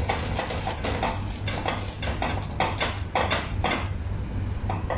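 Knife sawing through a pan-toasted sandwich: a run of crisp, rasping strokes as the blade cuts the toasted crust, quickest about halfway through, with light clinks of the blade against the pan.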